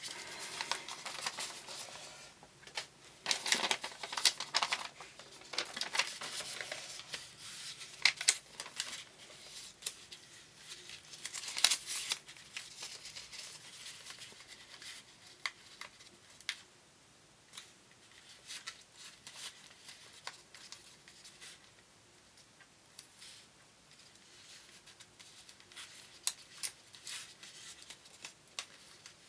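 Origami paper handled and folded by hand: crisp rustling, crinkling and sharp creasing strokes. They are busiest in the first half and grow sparser and fainter later on.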